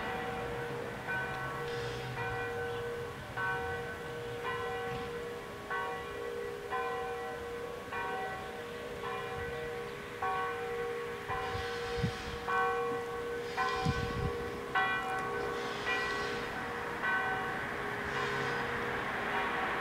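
Bells ringing, struck about once a second in an uneven sequence of differing pitches, each note ringing on into the next; the strikes grow louder in the second half.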